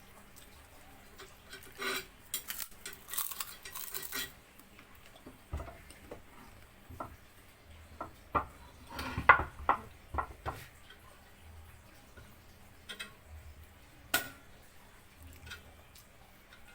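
Metal tools and engine parts clinking and clattering during valve removal from a DOHC cylinder head. The clinks come in scattered groups, with busy runs about two to four seconds in and around nine seconds in, where they are loudest, then a few single knocks.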